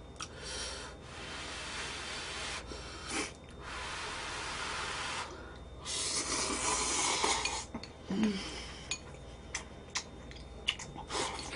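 Ramen noodles being slurped in three long, hissing draws, followed by a few light clicks of chopsticks against the bowl.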